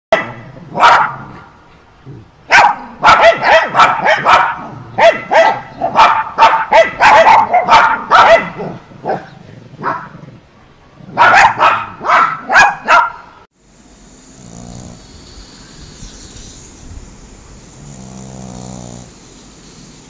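A dog barking in quick runs of short barks, over and over, which cuts off suddenly. A pug's slow snoring breaths follow, much quieter, with two longer snores near the end.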